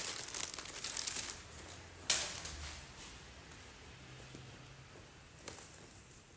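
Plastic packaging bag rustling and crinkling as clothing is handled and pulled from it, with a sharp click about two seconds in and quieter handling after.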